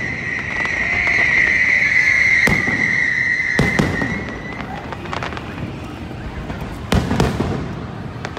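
Aerial firework shells bursting, a string of sharp bangs a second or two apart with a loud cluster about seven seconds in. A steady high whistle-like tone runs under them and fades out about halfway through.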